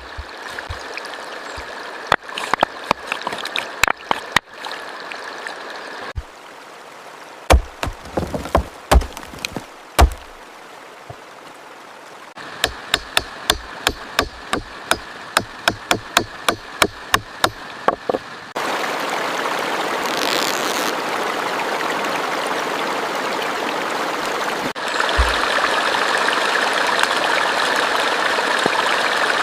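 Running water from a stream, steady throughout. Over the first two-thirds it carries many sharp taps or knocks, at about two or three a second for a stretch in the middle. In the last third only the rushing water is heard, louder.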